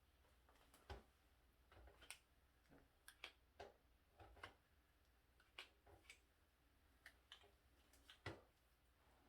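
Faint, irregular clicks and taps, a dozen or so spread over several seconds, from hair-styling tools being handled while flat ironing hair. The loudest click comes a little past eight seconds in.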